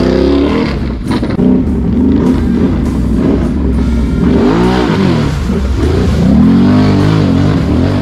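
ATV engine revving hard in repeated surges, its pitch climbing and falling, as the machine churns through a deep mud hole.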